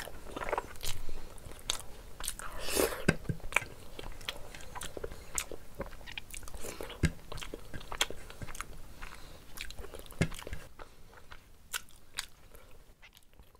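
Mouth sounds of someone eating rice and curry by hand: wet chewing, lip smacks and sucking at the fingers, in many sharp irregular clicks. They grow quieter over the last couple of seconds.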